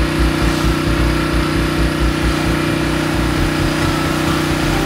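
A 4-gallons-per-minute gas-engine pressure washer running steadily under load, with the hiss of its water jet spraying up onto house siding from a long wand.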